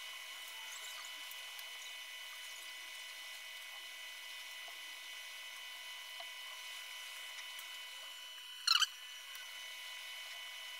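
Steady high-pitched whine and airy hiss of a hot air rework station blowing on a phone logic board to reflow the solder balls. A short, sharp chirp cuts in once near the end.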